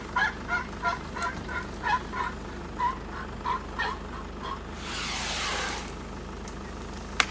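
A bird calling in a rapid series of short, repeated notes, about three a second, which stops a little past four seconds in. A brief hiss follows about five seconds in, and a single sharp click comes near the end.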